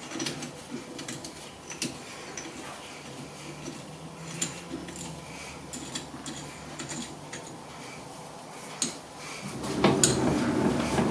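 Metal tools and parts being handled at the lathe: scattered light clicks and clinks of metal on metal, growing louder and busier near the end.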